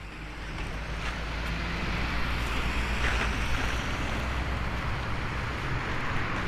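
Jet engine noise from a Boeing 737-800 freighter's CFM56-7B turbofans on final approach, a steady rushing sound that builds over the first two seconds and then holds. Wind on the microphone adds a low rumble.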